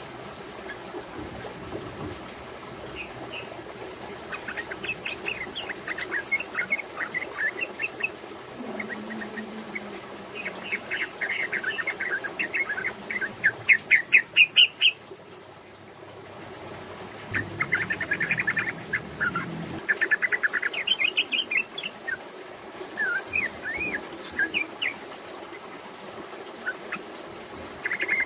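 Female yellow-vented bulbul (trucukan) singing in phrases of rapid chirping notes, the fast rolling 'ropel' song. The loudest, densest run comes about halfway through.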